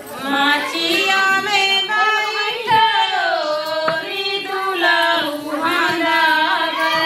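A high voice singing a melody, holding long notes and sliding between them.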